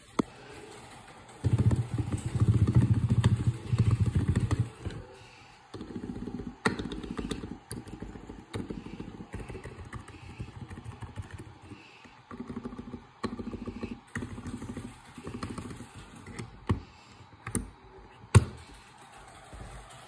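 Lubed Razer Huntsman Mini optical-switch keyboard being typed on in fast bursts, with deep, muffled clacks. A dense run of keystrokes fills the first few seconds, then shorter flurries follow with pauses between them, and a few sharper single clacks come near the end.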